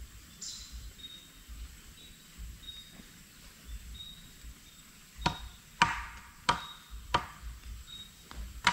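A series of sharp chopping blows, a blade striking wood, starting about five seconds in and coming roughly every two-thirds of a second, each with a brief ring. Before them only faint short chirps are heard.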